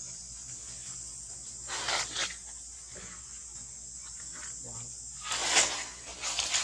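Steady high-pitched drone of insects, with a few brief rustles about two seconds in and again near the end, the loudest just past the five-second mark.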